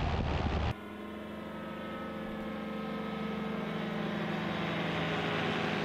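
Two-stroke engine of an Avid light aircraft. It is heard inside the cockpit for under a second. Then it is heard from below as the plane flies overhead, a steady engine note with many overtones that grows steadily louder as the aircraft comes nearer.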